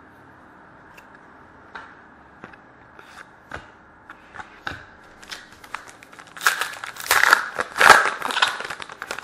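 Trading cards and pack wrapper being handled: scattered light clicks and taps of cards, then about two and a half seconds of louder crinkling and tearing of the plastic pack wrapper near the end.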